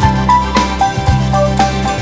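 Background music with a steady beat: a melody of short notes over a sustained bass.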